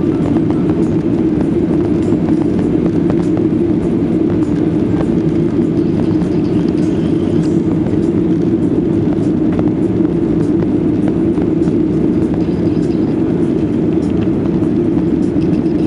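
Boeing 737-800 airliner with CFM56 turbofan engines: a steady, loud, deep drone of engines and rushing air during takeoff or climb, with faint scattered ticks.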